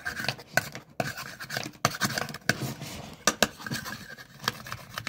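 A knife cutting food on a cutting board: irregular taps and scrapes, several a second.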